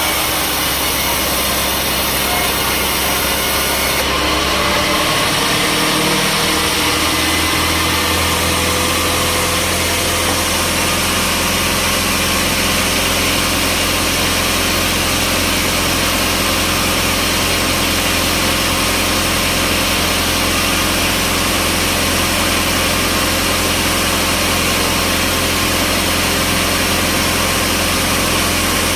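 Sawmill machinery running steadily with a constant engine-like hum. Its tone shifts about four to six seconds in, then holds even.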